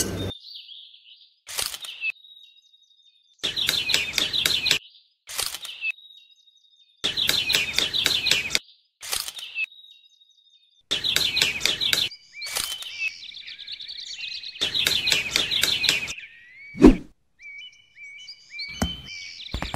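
Birds chirping in repeated bursts of rapid chattering notes, with a thin high whistle in the gaps between them. A single dull thud sounds shortly before the end.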